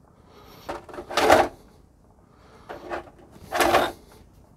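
Hands taking the plastic body off an RC monster truck: four short plastic rattles and clicks as the body and its fixings are worked loose, the loudest about a second in.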